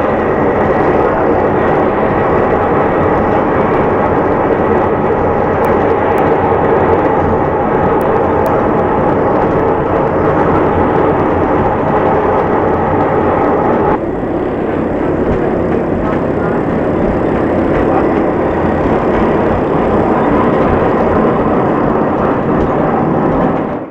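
Narrow-gauge steam-hauled train running at speed, heard from an open coach window: a loud, steady rumble and rush of wheels on rail and passing air. The sound drops slightly and abruptly about fourteen seconds in.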